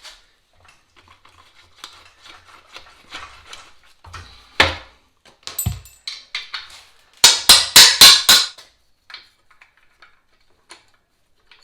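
Hammer blows on metal: scattered light knocks and clicks, one sharp knock, then a quick run of about six loud ringing strikes in just over a second, driving out a seized, ungreased swing arm axle.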